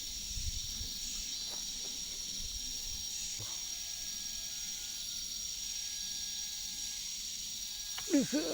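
Forest insects droning steadily in a high, continuous buzz. A short sweeping sound comes near the end.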